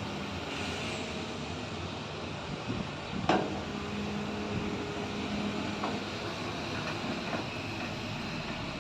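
Freight train standing during unloading: a steady rumble, with one sharp metallic clank about three seconds in.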